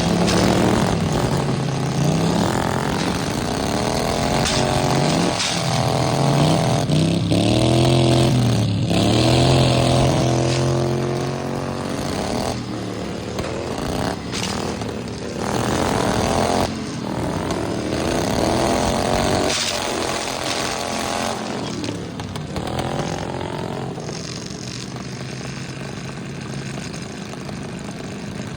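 Small riding-lawnmower engines revving up and down repeatedly, sometimes more than one at once, with a few sharp knocks in between. They settle to a steadier, quieter run near the end.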